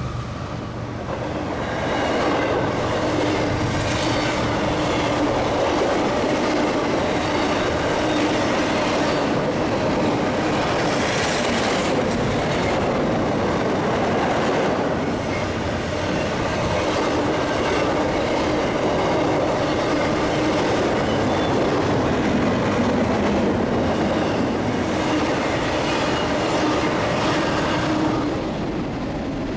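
CSX intermodal freight train's cars rolling past, a steady noise of steel wheels on rail that eases slightly near the end.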